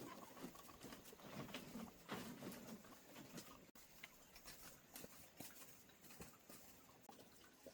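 Near silence with faint, scattered light taps and rustles.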